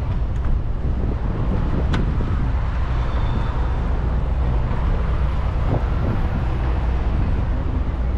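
Steady low engine and traffic rumble, with a short sharp click about two seconds in.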